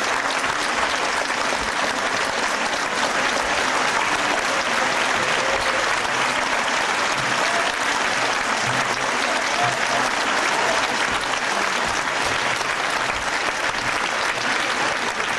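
Theatre audience applauding steadily through a curtain call, dense and unbroken.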